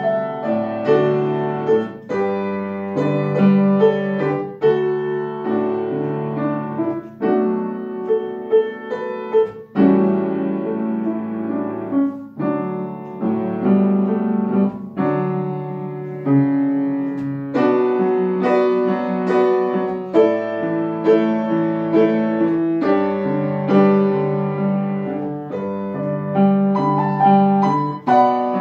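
Upright acoustic piano played solo: a melody over steady low chords in an even rhythm.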